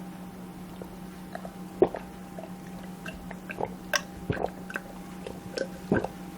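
Close-miked eating sounds: scattered wet smacks and clicks of someone chewing, the sharpest about two seconds in and another near the end, over a steady low hum.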